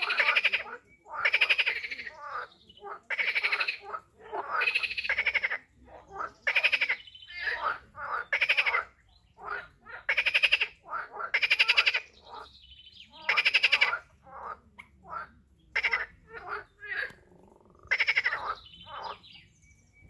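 Several animals calling over and over in a chorus: loud, rapidly pulsed calls, each under a second long, following one another about every second and often overlapping.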